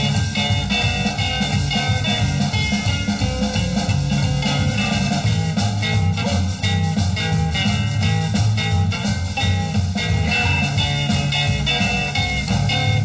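1950s-style rockabilly record playing on a turntable, in a stretch led by the guitar over a steady rhythm section.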